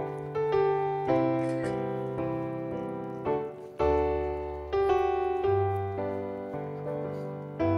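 Gentle piano music: slow chords, each struck and left to fade before the next.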